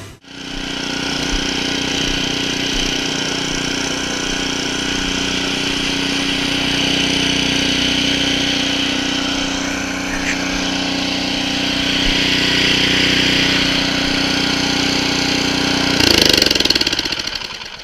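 The Power Smart 22-inch two-stage snow blower's 6.5 hp single-cylinder OHV engine running steadily while the machine clears snow. Near the end its note drops and winds down.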